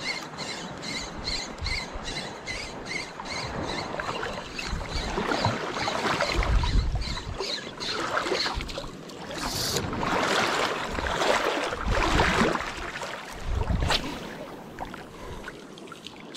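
Saltwater spinning reel (DMK size 5000) being cranked, giving a regular tick about twice a second at first. Then wash of sea water swells up louder twice, with a single sharp click near the end.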